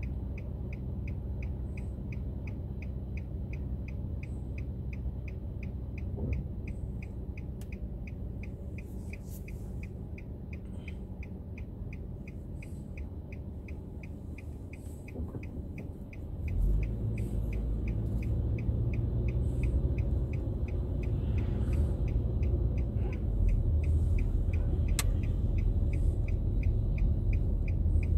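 A car's turn-signal indicator ticks steadily inside the cabin over a low engine and road rumble. About halfway through, the rumble grows louder as the car pulls away and speeds up.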